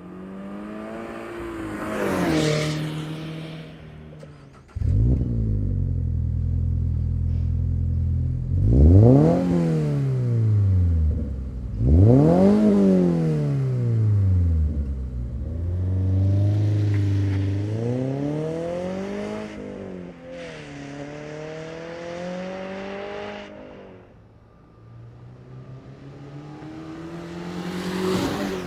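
Subaru BRZ's 2.4-litre flat-four through an MRT Sport Touring axle-back exhaust. It drives past at the start, then sits idling and is free-revved: two quick blips about nine and twelve seconds in, and a few longer revs after that. It drives past again near the end.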